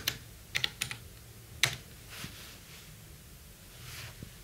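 Typing on a computer keyboard: a few separate keystrokes in the first two seconds, the sharpest about a second and a half in.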